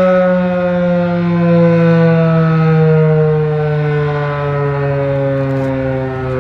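Federal Signal 2001-SRNB outdoor warning siren sounding loud and steady, its pitch falling slowly and smoothly as it winds down at the end of its Alert signal.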